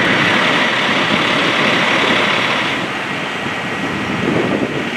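Fire engine's engine running steadily at the scene, a dense, even noise that drops slightly about three seconds in.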